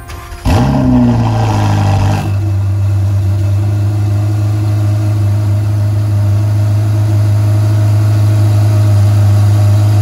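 Ferrari 488 Pista's twin-turbo V8 starting about half a second in with a sudden loud flare of revs, then dropping after about two seconds into a steady idle.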